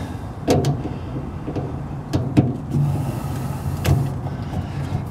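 Several short, sharp metallic clicks and taps from hands working a fitting on a fuel tank filler neck, over a steady low hum.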